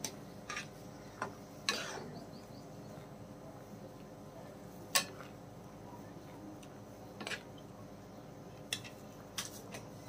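Metal spatula stirring noodles in boiling broth in a metal karahi, knocking and clinking against the pan's sides in scattered sharp clinks, the loudest about five seconds in, over a low steady background.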